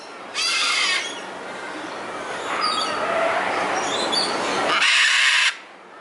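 Scarlet macaw screaming: a harsh scream about half a second in, a rasping stretch that grows louder, and a loud scream near the end that cuts off suddenly.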